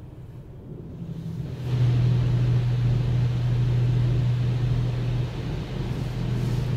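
Touchless automatic car wash spraying the car with high-pressure water jets, heard from inside the cabin: a steady hiss of spray over a loud, steady low machine hum. It swells up strongly about a second and a half in.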